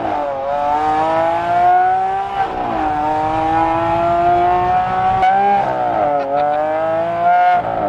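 Lamborghini Aventador's 6.5-litre V12 accelerating hard through a Fi titanium valvetronic exhaust. The revs climb steadily in each gear, and the pitch drops sharply at each upshift, about every two and a half to three seconds. It is heard from the open-top cockpit.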